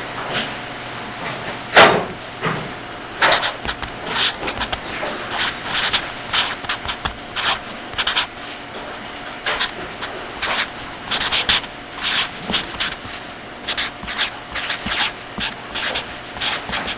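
Writing on a board: an irregular run of short scratchy strokes and taps, several a second, with one louder knock about two seconds in, over a faint steady hum.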